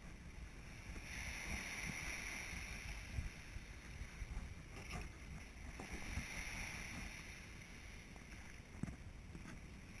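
Small waves washing onto a rocky, sandy shore, the surf swelling twice, about a second in and again around six seconds in.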